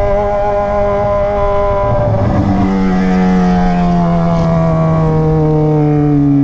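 Yamaha XJ6's inline-four engine through an open 3-inch stainless Atalla exhaust while riding, holding a steady pitch for about two seconds, then the revs falling slowly as the throttle eases off.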